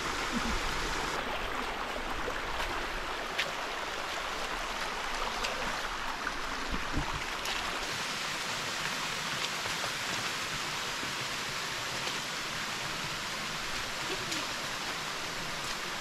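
Stream water running steadily over rocks, with a small waterfall spilling into a pool.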